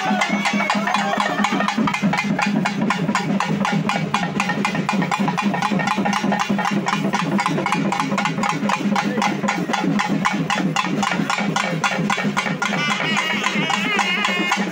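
Udukkai hourglass drums beaten in a fast, even rhythm for Amman worship, with a voice singing over them near the end.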